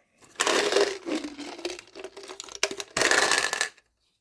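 Crinkling of plastic packaging being handled, in two spells of a couple of seconds and under a second, stopping shortly before the end.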